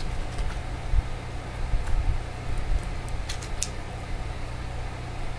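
A small electric fan running with a steady low hum, and a few sharp clicks of a beagle's teeth gnawing on a chew bone, two of them close together about three and a half seconds in.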